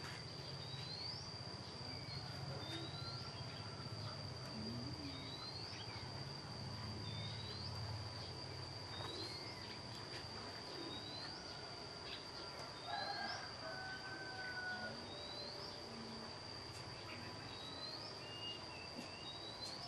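Faint insect buzzing: a steady high whine with a short rising chirp repeated about once a second.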